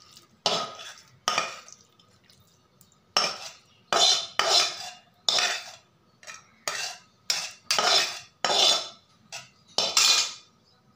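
A metal spoon scraping sautéed onion and tomato out of a steel kadai into a steel mixer-grinder jar: a dozen or so separate short scrapes of metal on metal.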